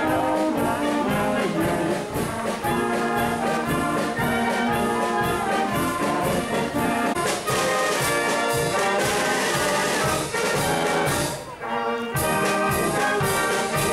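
Wind band playing a lively piece, with trumpets and trombones carrying the tune over a steady beat. The music drops away briefly about three-quarters of the way through, then comes back.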